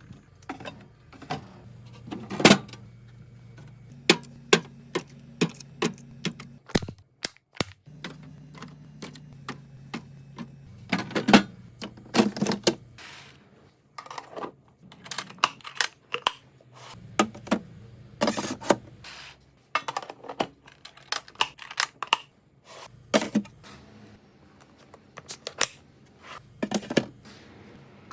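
Irregular clacks and knocks of food containers, jars and packages being handled and set down on refrigerator shelves, over a faint low hum.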